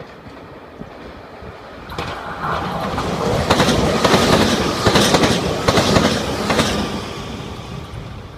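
Red Meitetsu electric commuter train passing through a station: its rumble builds, the wheels clack over the rail joints in a quick run of loud clacks as the cars go by, then it fades away.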